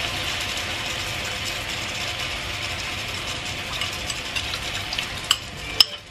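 Chicken and onions in tomato sauce sizzling steadily in a frying pan, slowly getting quieter. Near the end come a few sharp clinks of a metal spoon against a ceramic bowl as water is spooned into the pan.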